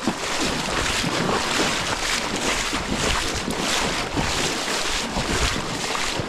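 Steady rushing wash of surf in the shallows, mixed with wind buffeting the microphone in uneven low rumbles.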